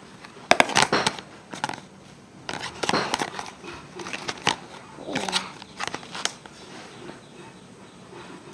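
Soft slime being squeezed and kneaded by hand, with irregular bursts of sticky popping and crackling as air pockets in it burst.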